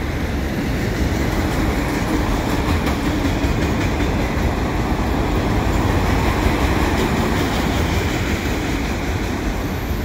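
Freight train of autorack cars rolling past close by: steady rolling noise of steel wheels on the rails, with no break.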